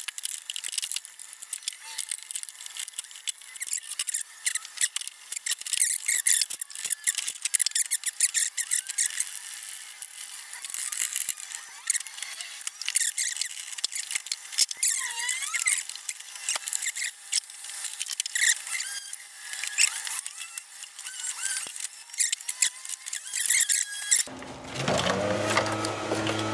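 Hand tools clicking and scraping on plastic parts in a car's engine bay, with short squeaks as the lubricated plastic pieces are pried and worked loose. About two seconds before the end a louder, steady humming sound cuts in.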